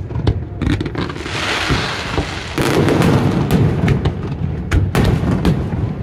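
Fireworks display: aerial shells bursting in sharp bangs and deep booms, coming thicker and faster about halfway through.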